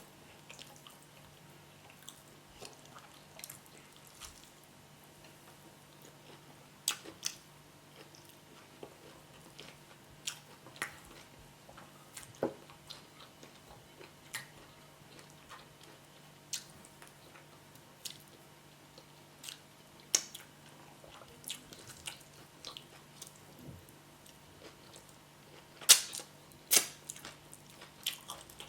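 Close-up mouth sounds of someone chewing boiled yam with spinach sauce: wet smacks and clicks at irregular intervals, with two louder smacks near the end.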